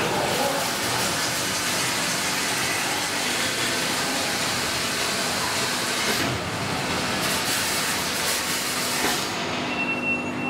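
Semi-automatic cask washer running its wash cycle, cleaning jets spraying inside two upturned casks with a steady rushing hiss. The noise dips briefly about six seconds in, and about nine seconds in the hiss cuts off, leaving a lower machine hum as the cycle changes stage.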